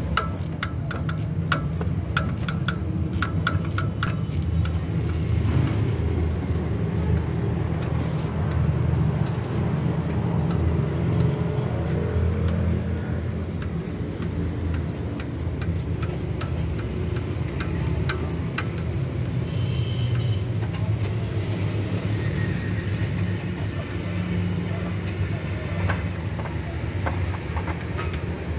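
Quick runs of sharp metallic clicks from a wrench working engine parts during the first few seconds, with a few scattered clicks later, over a steady low rumble.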